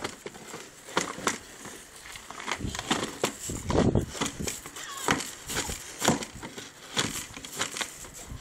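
American bulldog biting and chewing a plastic traffic cone: a string of irregular sharp cracks and crunches of the plastic under its teeth, several a second.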